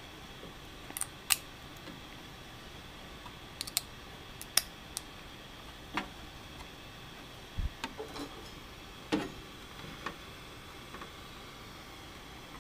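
Irregular sharp clicks and cracks as a freshly printed part and its raft are flexed and pried off a 3D printer's perforated build board, with one dull thump about halfway through. A steady hiss runs underneath.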